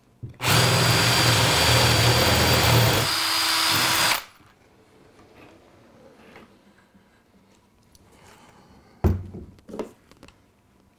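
A power drill boring a hole through foam-rubber track underlay and a plywood baseboard for about four seconds, its motor note changing about three seconds in. About nine seconds in comes a single knock, followed by some lighter clatter.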